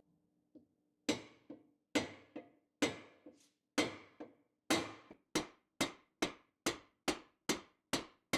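Soft-faced mallet tapping a half-inch hardened steel dowel pin into its hole, about a dozen sharp strikes. They start about one a second and quicken to over two a second near the end, the earlier strikes each followed by a small bounce tap. The pin is being driven in dry, without lubricant.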